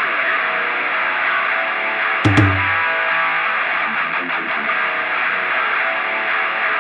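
Background rock music led by distorted electric guitar, muffled as if filtered, with one heavy low hit about two seconds in.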